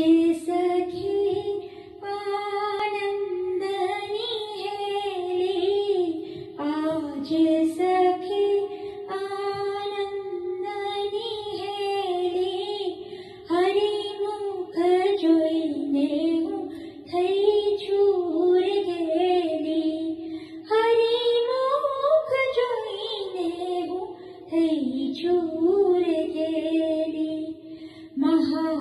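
A woman singing a Gujarati song solo, a flowing melodic line sung in phrases with short breaks between them.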